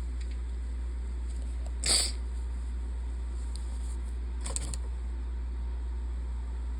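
A person sneezing once, loudly, about two seconds in: an allergy sneeze set off by pollen. A second, fainter and shorter sound follows a couple of seconds later, over a steady low hum.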